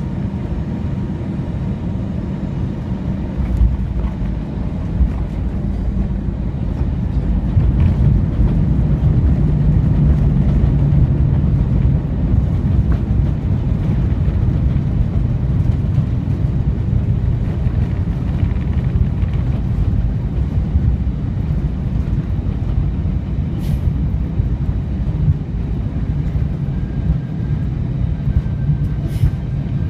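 Airbus A320 cabin noise during the landing roll: a loud, steady low rumble of the jet engines and the wheels on the runway. It swells about eight seconds in and eases a little after a few seconds.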